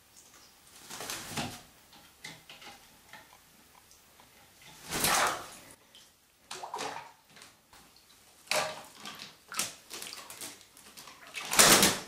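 African grey parrot bathing in a sink of water: a loud splash about five seconds in as it drops into the water, then bursts of splashing and wing-beating, the loudest near the end.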